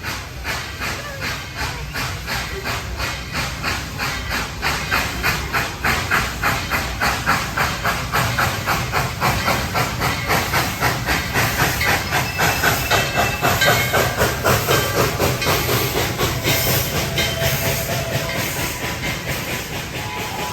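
Coal-fired steam locomotive of the Dollywood Express chuffing in an even rhythm of about two to three beats a second, with hissing steam. The beats grow louder towards the middle and ease off again near the end.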